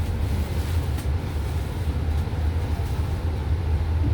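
Steady low rumble of a moving bus heard from inside the cabin: engine and road noise with a faint hiss above it.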